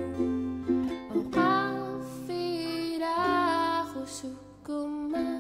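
Acoustic guitar and ukulele playing a slow song together, with a woman's voice singing long, gliding notes from about a second in.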